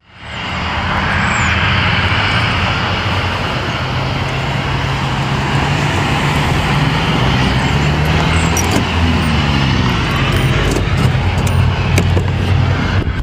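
Motor vehicle driving on the road: the engine runs with a steady hum under tyre and wind noise, and its note shifts for a couple of seconds past the middle as the engine speed changes.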